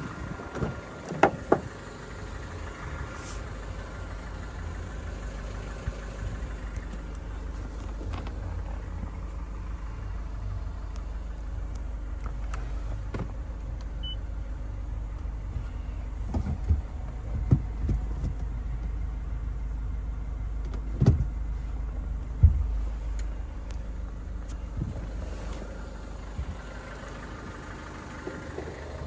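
Mazda CX-7 2.2-litre four-cylinder turbodiesel idling with a steady low rumble, broken by a few sharp knocks and clicks: a pair about a second in and several more in the second half.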